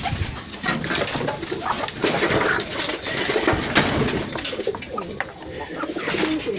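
Domestic doves (pigeons) cooing, with scattered short clicks and knocks.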